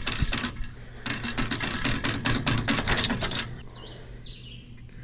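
Rusted thin sheet-metal gutter strip being peeled off the edge of a grader cab roof: a fast run of crackling snaps as the rotted metal breaks away, dying down about three and a half seconds in.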